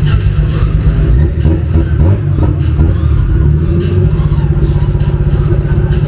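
A straight-piped V8 in a 1978 Puma GTE idling loud with a rapid, uneven pulsing beat, the car standing at the start line.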